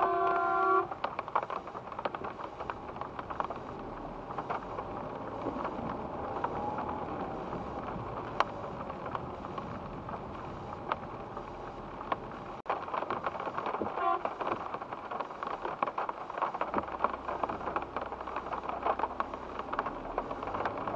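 Car interior on the move on a wet road: a steady hiss of tyres through water with frequent small taps of raindrops on the windscreen. A horn sounds briefly at the very start.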